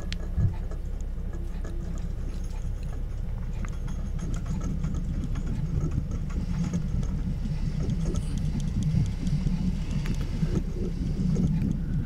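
Doosan 4.5-ton forklift's engine running steadily as the forklift drives with empty forks, a low rumble with faint rattles.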